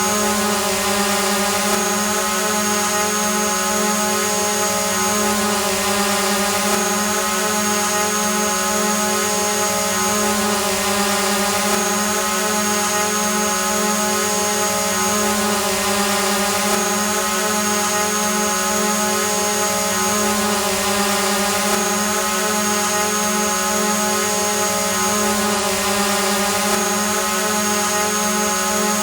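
Drone hovering: a steady, even hum and whine from its motors and propellers. A high thin tone above it breaks off briefly every five seconds or so.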